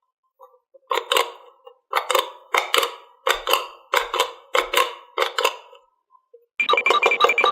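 A run of about nine short hollow taps, roughly two a second, then a fast buzzing rattle for the last second or so.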